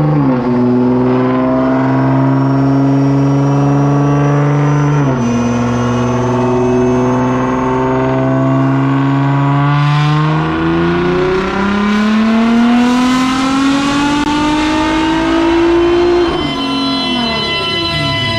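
Nissan GT-R R35's twin-turbo V6 running under load on a chassis dyno, working through the gears. Its note holds nearly steady with sudden drops at upshifts near the start and about five seconds in, then climbs steadily for about five seconds before dropping again at another shift.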